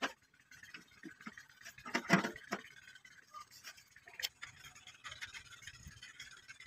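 Faint, scattered clicks, taps and light scrapes of hands working metal fittings on the steel housing of a stone flour mill (atta chakki), which is not running. A few louder taps come about two seconds in and a sharp click a little past four seconds.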